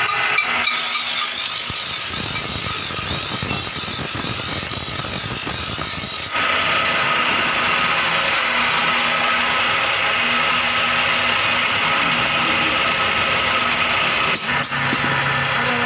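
Electric bench grinder running and grinding a bolo knife blade against its wheel: a steady, loud grinding hiss that turns less bright about six seconds in, with a few sharp knocks near the end.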